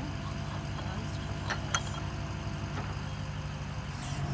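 Geoprobe direct-push drilling rig's engine running steadily, with a couple of light metallic clicks about a second and a half in.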